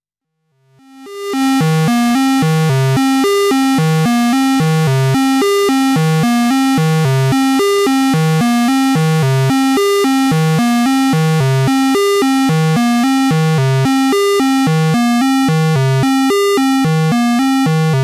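A repeating sequence of synthesizer notes run through the HS-111 Dystopia Distortion Eurorack module, heavily distorted and buzzy. It fades in about a second in and then loops steadily.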